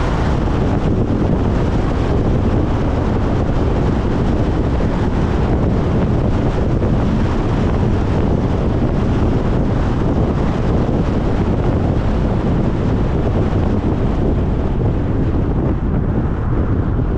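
Steady wind buffeting the microphone over the low rumble of tyres and road noise from a car driving at speed.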